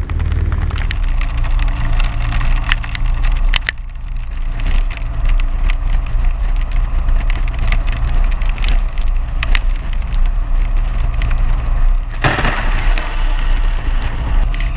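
Motorcycle riding in heavy rain as heard from a helmet camera: a steady low engine and wind hum under dense crackling of raindrops striking the camera and microphone. The sound shifts abruptly about 12 seconds in.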